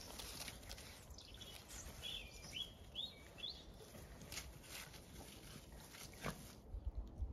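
Faint outdoor ambience with a run of four short, high chirps between about two and three and a half seconds in, some soft clicks, and a few low bumps near the end.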